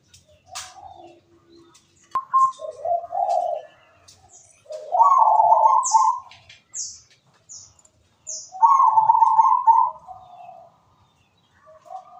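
Zebra dove (perkutut) cooing: three phrases of rapid rolling coo notes, each lasting a second or so, the middle one loudest. A few short high chirps come between the second and third phrases.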